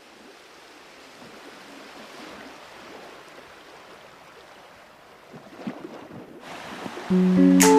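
Steady rush of flowing river water. Acoustic guitar music comes in near the end.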